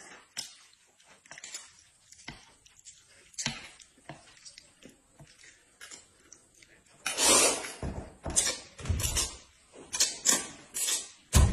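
Light scattered clicks and taps of utensils against dishes, then from about seven seconds in a loud slurp of noodles followed by a run of shorter slurps and chewing, with a sharp knock near the end.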